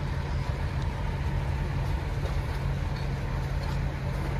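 Shrimp boat's engine running steadily as the boat passes close by, a constant low rumble.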